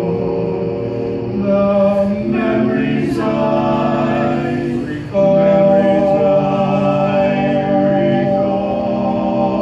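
Male barbershop quartet singing a cappella in four-part close harmony, holding long sustained chords. About five seconds in the chord changes and the singing swells louder.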